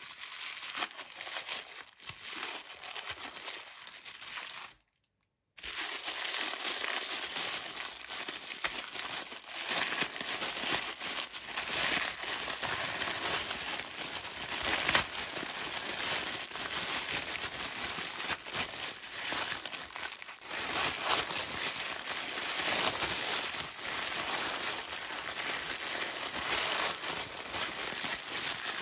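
Thin white tissue paper crinkling and rustling as hands unwrap and crumple it, with a brief silent break about five seconds in.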